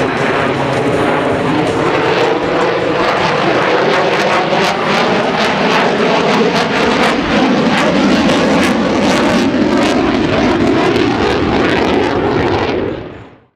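F-35A Lightning II's single F135 afterburning turbofan jet engine at high power as the jet flies overhead: a loud, steady jet noise full of crackle. It fades out near the end.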